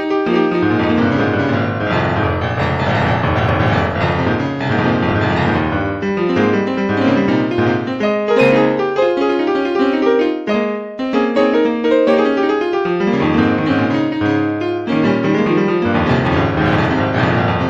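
Piano-led music over a sustained low bass.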